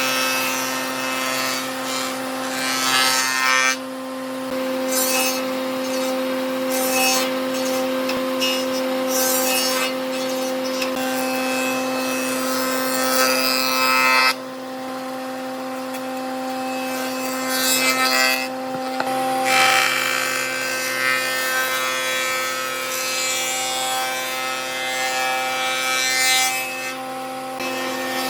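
Electric power tool working wood: a steady motor hum under a rough, rasping wood-cutting noise that eases off briefly a few times and comes back.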